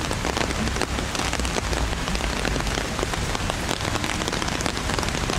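Heavy rain falling steadily: a dense hiss dotted with many sharp drop hits close by, over a low rumble.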